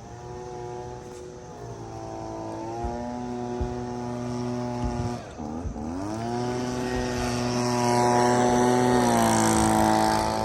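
A motor or engine running steadily, its pitch stepping up and down several times and growing louder toward the end.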